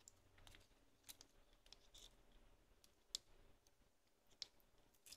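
Near silence broken by a few faint clicks and ticks, the clearest about three seconds in, as fingers work the LCD loose in the disassembled compact camera's metal frame.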